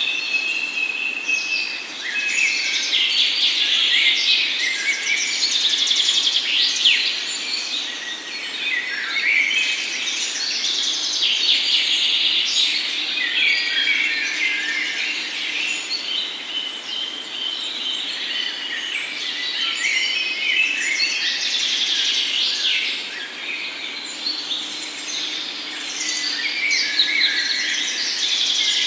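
A dense chorus of many songbirds chirping and trilling over one another without a break.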